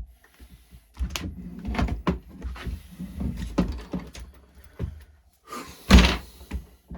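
Parts of a radio-controlled monster truck being handled during reassembly: a string of knocks, clicks and clatter as pieces are moved and set down. The loudest knock comes about six seconds in.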